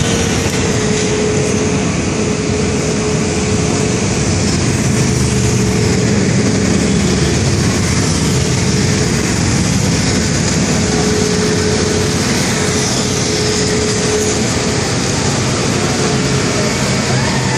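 Continuous traffic noise of a motorcade driving along a rain-wet street: engines running and tyres on wet pavement as police motorcycles, a police car and black SUVs go by. The noise stays steady, with no clear rise or fall.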